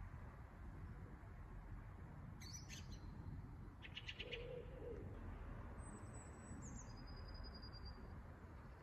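Scattered songbird calls over a faint low outdoor rumble: a high chirp, then a quick trill around 4 seconds in, and thin high whistled notes that step down in pitch near the end.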